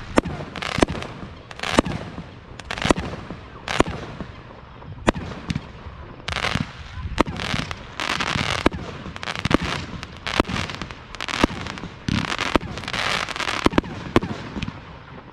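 A 500-gram, 32-shot consumer firework cake firing. Sharp shots come about once a second, most of them followed by a noisy burst lasting up to a second or so.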